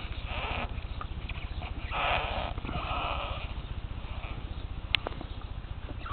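A sharp flat chisel cutting through the hard rubber of a car tire's tread lugs: three short rasping strokes, then a sharp click about five seconds in.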